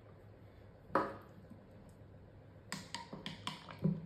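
Silicone spatula knocking and scraping against small plastic beakers: one sharp click about a second in, then a quick run of light taps near the end.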